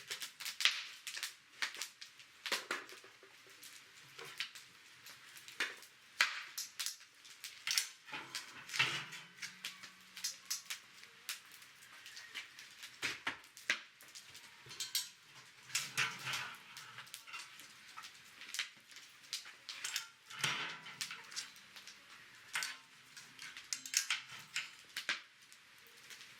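Wood fire crackling and popping, with irregular sharp snaps at uneven intervals.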